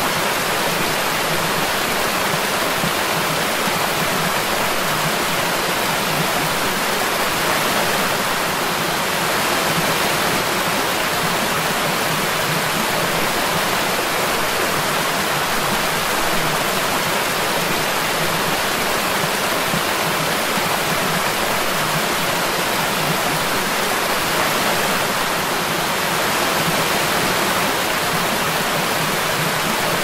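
Fast-flowing forest creek: a steady, dense rush of running water with no pauses or changes.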